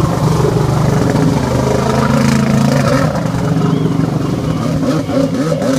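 Stand-up freestyle jet ski's engine running hard and revving up and down as the rider throttles through turns, with water spraying and hissing.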